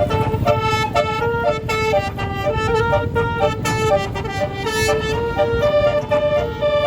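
Bus multi-tone 'telolet' air horn playing a quick tune of stepping notes, over the low rumble of the bus.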